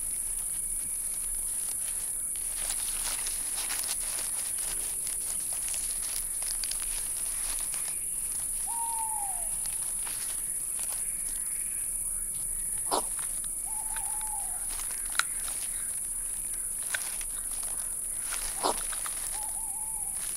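Night ambience of a steady high insect chorus, with the crackle and rustle of dry leaf litter as a European hedgehog snuffles through it foraging. Three short calls from an unseen animal sound about 9, 14 and 19 seconds in.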